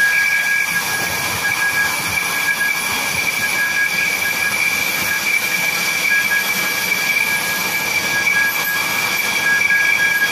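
Dassault Rafale B's twin M88 turbofan engines whining steadily as the jet taxis at low power: two high, steady whistling pitches over a hiss.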